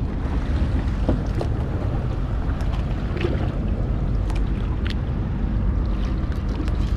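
Boat's quad 300 hp outboard engines idling as a steady low hum, with wind on the microphone and a few light clicks.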